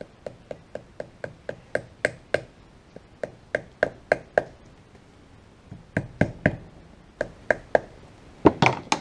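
Rubber mallet tapping a new pinion oil seal into the nose of a Land Rover Series 2a differential housing, working it in evenly. Light, even taps about three or four a second, each with a short ringing note, then a pause of over a second, then more taps in short groups, loudest near the end.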